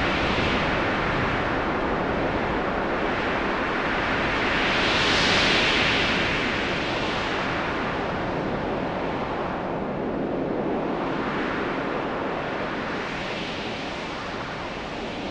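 Eerie wind ambience sound effect: a continuous rush of wind that rises and falls in slow gusts, the strongest about five seconds in.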